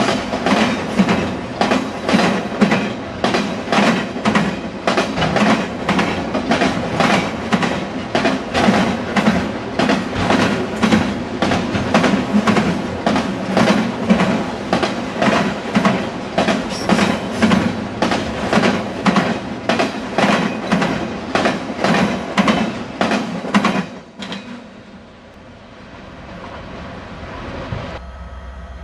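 Freight train of enclosed autorack cars passing close by at speed: the steel wheels clack over the track in a loud, steady rhythm of about two to three strikes a second. About 24 s in, the clacking stops abruptly and gives way to a quieter rumble.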